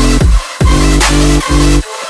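Electronic dance music with a heavy bass line and a steady beat, the bass cutting out briefly twice.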